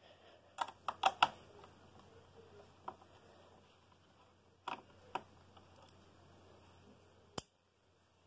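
Small sharp clicks and taps of a screwdriver and fingers working the screws out of a Toshiba Portégé R700 laptop's plastic bottom case: a quick cluster of clicks about a second in, a few single clicks through the middle, and a last click just before the sound cuts off suddenly.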